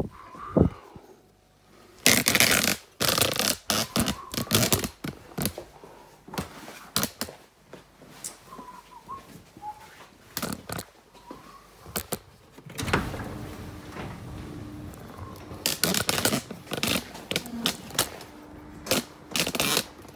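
Irregular clicks, knocks and clatter of tools and parts being handled during car maintenance. A steady low noise comes in about two-thirds of the way through.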